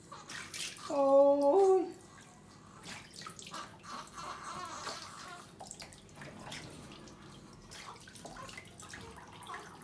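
Water splashing and trickling in a plastic baby bathtub as a hand scoops and rubs water over a newborn's head and body. A short voice sound, sliding up in pitch at its end, comes about a second in.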